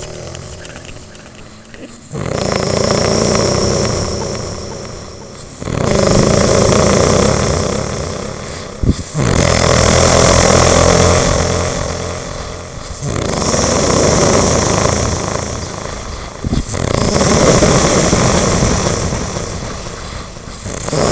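Loud, rough snore-like noises repeating about every three and a half seconds, each starting suddenly and fading away over about three seconds.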